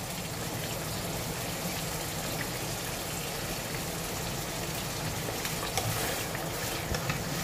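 Mutton pieces sizzling steadily in oil in a pan on a low gas flame as they brown. Near the end a wooden spatula stirs the meat, adding a few scrapes and knocks.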